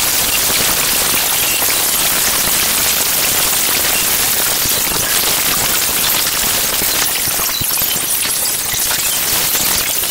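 Dense, bright crackling hiss, a steady wall of fine crackles from an acousmatic electroacoustic composition. In the last few seconds it thins a little and the separate crackles stand out more.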